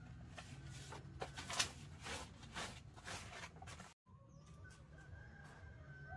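Irregular rustling and crackling handling noises, a few short knocks a second. About four seconds in they cut off abruptly and are replaced by faint bird calls.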